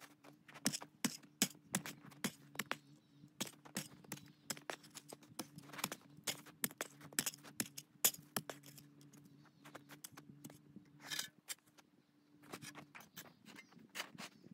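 Packed snow crunching and scraping as it is chopped and dug with a hand tool: many sharp, irregular crunches, several a second. A faint steady low hum runs underneath and stops near the end.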